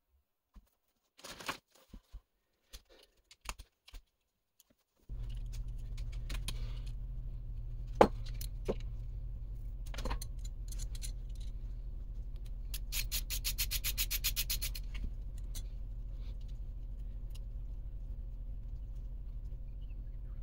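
Small metal RC drivetrain parts (slipper clutch, spur gear and output shaft) handled and clinked together, in light clicks and taps. About five seconds in, a steady low electrical hum starts and continues under sharper knocks, the loudest about eight seconds in. Around the middle come a couple of seconds of rapid, even clicking.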